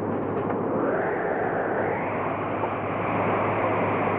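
Howling blizzard wind, a steady rush that swells louder and higher about two seconds in.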